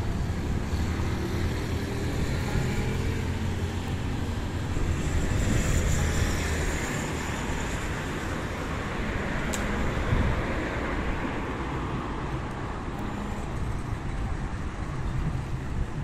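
Steady road traffic noise: car engines and tyres running past in a continuous wash, with a faint low engine hum and no single loud event.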